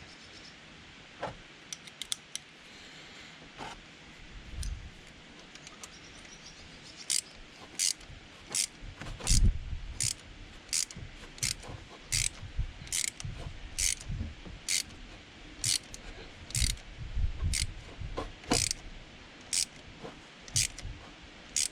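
Ratchet wrench clicking in short bursts about once a second as bolts are turned to push a stuck water pump off the engine, with a few dull knocks in between.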